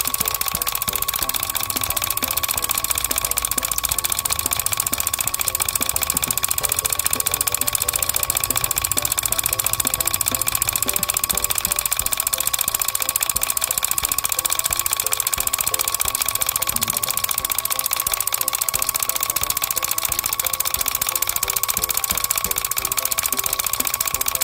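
Miniature model diesel water pumps running steadily: an even, fast buzzing whir with a constant high whine that holds without change.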